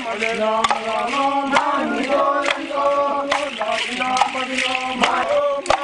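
A group of voices sings a traditional dance chant in long held notes, kept in time by a sharp beat about once a second.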